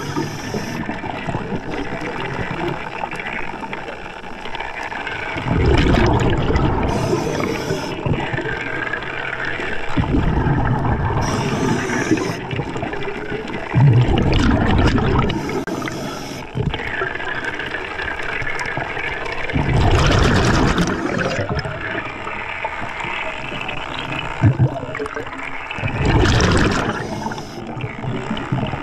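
Scuba diver breathing through an Atomic regulator underwater. Each exhalation sends out a gurgling rush of bubbles, repeating about every five seconds, with a short hiss of inhaled air through the regulator between some of them.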